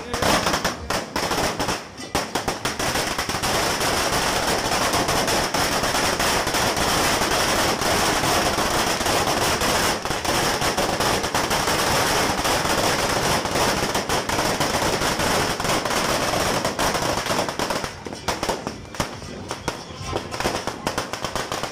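Firecrackers and fireworks going off. A few separate bangs give way to a dense, unbroken crackle for about fifteen seconds, which thins back into separate pops and bangs near the end.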